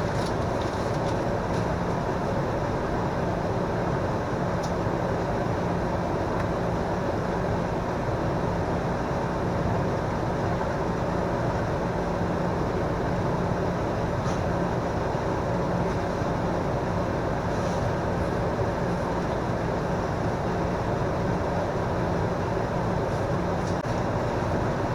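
Microwave oven running with a steady, unchanging hum while it heats a bowl of brownie batter.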